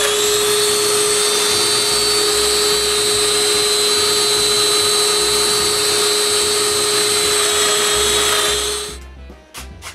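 Festool Domino joiner's motor running at full speed with a steady high whine, then winding down about eight and a half seconds in.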